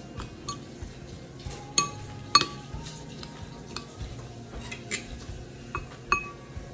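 Metal spoon clinking and scraping against a ceramic bowl while salad is served, a string of sharp clinks with a short ring, the loudest about two and a half seconds in.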